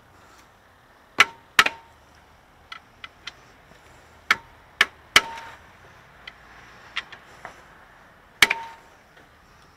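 A steel pry bar striking the alternator's metal mounting tab: about six sharp clanks, several with a short ringing tone, with lighter taps between them, as the stuck tab is knocked to try to reset it.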